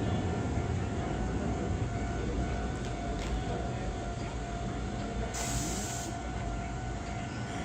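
Electric train standing with a steady hum and low rumble, and a short burst of air hiss, typical of an air brake release, about five seconds in.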